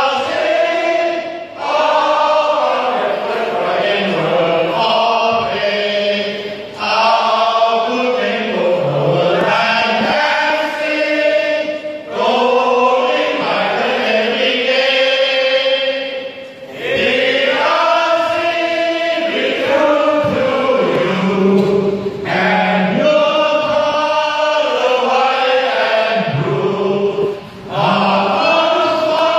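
A group of men singing together in chorus, holding long notes in phrases broken by short pauses about every five seconds.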